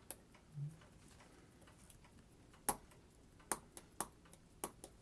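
A few sharp, irregularly spaced clicks of small metal tools and parts being handled on a watch movement, the loudest a little under three seconds in.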